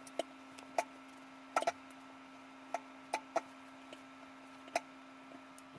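Scattered light clicks and knocks, about eight in all, as a child moves around on a bed arranging pillows, over a steady low hum.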